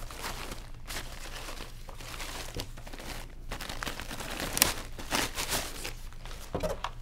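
Protective packaging wrap crinkling and rustling as it is pulled off a soundbar, with the loudest crinkles about five seconds in.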